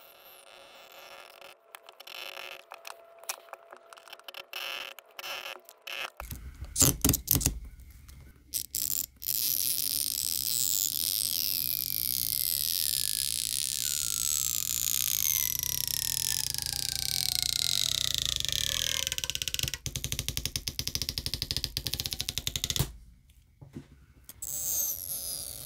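Stretch-release battery adhesive strip being pulled out from under an iPhone 16 Pro battery: handling clicks and scrapes at first, then a long loud squeal as the strip stretches. Its pitch slides steadily down over about ten seconds and cuts off suddenly near the end.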